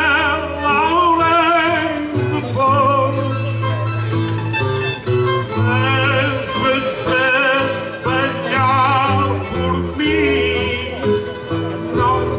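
Cantoria ao desafio: a man sings a traditional improvised verse with vibrato over plucked acoustic guitar and Portuguese-style guitar accompaniment with a steady bass line.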